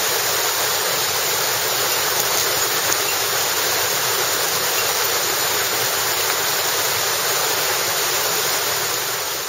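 Steady rushing of a flowing stream, an even wash of water noise that barely changes throughout.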